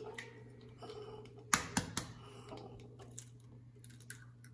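An egg being cracked and its shell pulled apart by hand: three sharp taps close together about a second and a half in, then a few light clicks of the shell, over a low steady hum.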